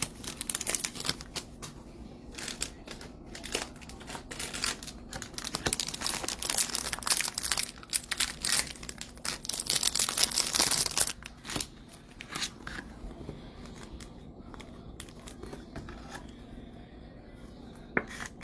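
Baseball card pack wrappers crinkling and being torn open, a dense crackle for about ten seconds, then quieter handling with a few light clicks.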